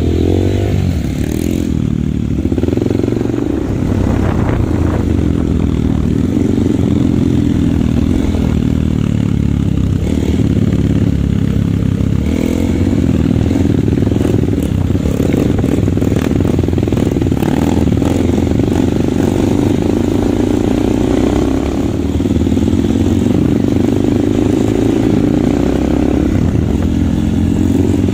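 Off-road dirt bike engines running steadily while riding along a rocky, muddy trail, the pitch rising and falling a little with the throttle.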